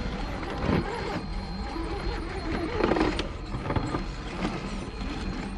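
Scale RC crawler truck's small electric motor and gear drive whining as it claws up loose sandy dirt, tyres scrabbling on the soil. There are louder scrapes about a second in and again around three seconds.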